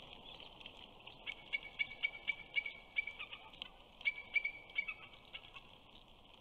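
Bald eagle calling: a run of rapid, high piping notes lasting about two seconds, then after a short pause a shorter run of a few more.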